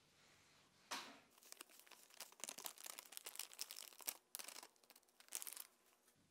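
Plastic sachet of chilli powder being torn open and then crinkling in bursts for several seconds as it is squeezed and shaken out.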